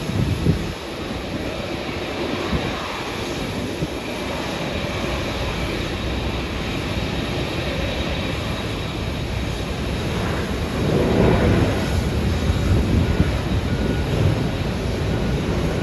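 Turkish Airlines Boeing 787-9's jet engines, a steady noise with a strong low rumble that grows somewhat louder about eleven seconds in.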